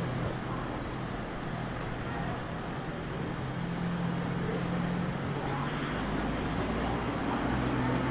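City street traffic: a steady low engine hum over the continuous noise of passing road traffic.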